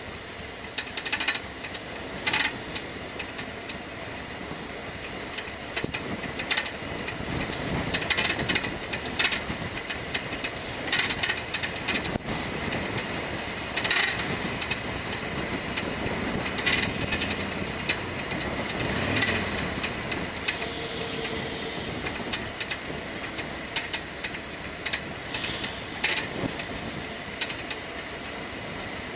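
Harley-Davidson Sportster XL1200R coasting in neutral: steady road and wind hiss with irregular sharp knocks and rattles every second or two over bumps. The owner takes the knocking for something on the bike striking, though he cannot find what.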